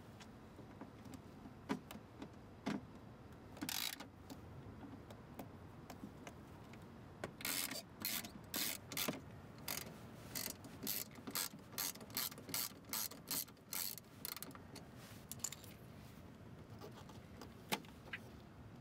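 Socket ratchet wrench clicking as it backs out the door speaker's mounting bolts: a few scattered clicks at first, then a run of strokes at about two a second through the middle.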